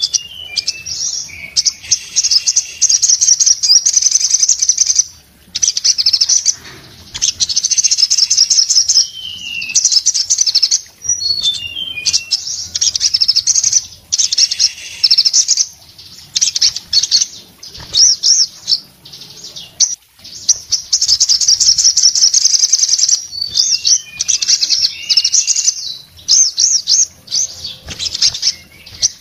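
A sogon singing in full song: runs of rapid, high chattering notes lasting a few seconds each, separated by short pauses, with a few falling whistled notes mixed in.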